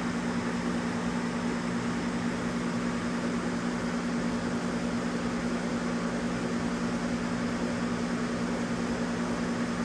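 A steady low electrical hum: two close low tones held over an even hiss of air noise.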